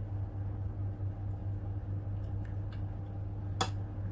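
Steady low electrical hum with a few faint light ticks, and one sharp click about three and a half seconds in.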